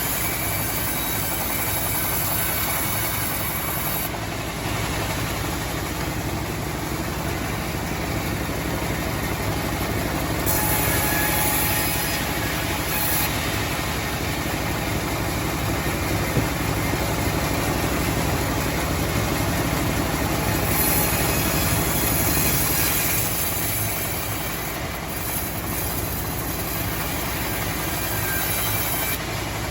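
Homemade sawmill running steadily with a continuous low mechanical drone. A higher hiss drops away and comes back every several seconds.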